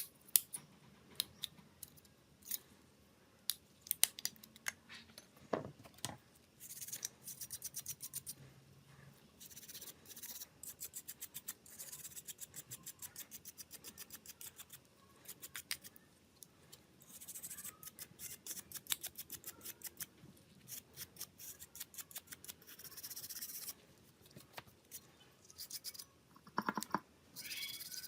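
Small hand tools working close up on a phone: runs of rapid, sharp, scratchy clicks, several a second, broken by short pauses.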